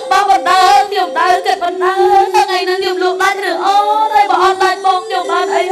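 A high voice singing a lakhon basak melody in gliding, ornamented phrases over a steady held accompaniment tone.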